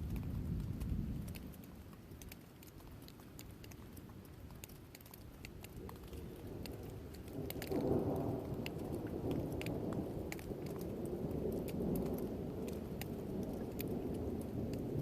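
Thunder rumbling: one roll dies away in the first couple of seconds, then a new roll builds about seven and a half seconds in and keeps rolling. Scattered raindrop ticks are heard throughout.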